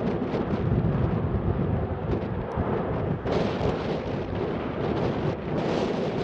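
Boeing 737-600's CFM56 jet engines running at takeoff power as the airliner rolls down the runway: a steady, heavy low rumble with a faint steady hum.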